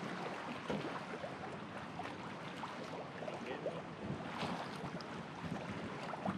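Steady wind and water noise, with faint scattered ticks and clicks.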